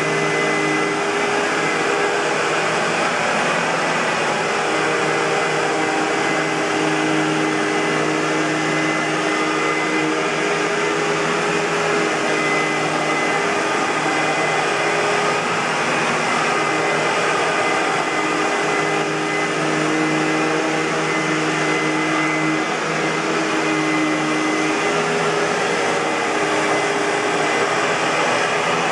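2006 Hoover WindTunnel Bagless Twin Chamber upright vacuum cleaner (U5753-900) running steadily: an even rush of air with a steady motor whine over it.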